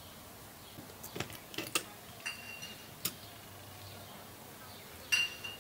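Table knife scraping roasted bone marrow out of a split beef bone and spreading it on grilled bread, the blade clicking against the bone and toast. There are a few separate short clicks, some in quick pairs, and a brief high squeak twice.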